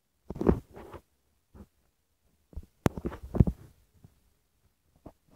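Muffled thumps and rustling from the phone being handled and plush toys being moved against it, in irregular bursts, with a sharp click about three seconds in.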